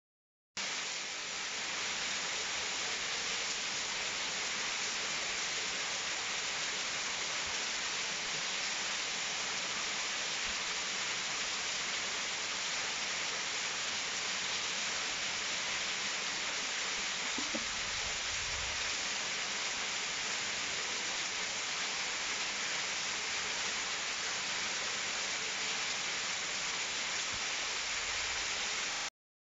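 A small mountain waterfall falls down a rock face and splashes into a rock pool. It makes a steady, hissing rush of water that starts and stops abruptly.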